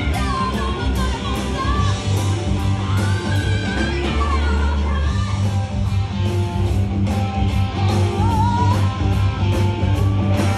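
Live rock and roll band playing: a woman singing into a microphone over electric guitar, bass and a steady drum beat.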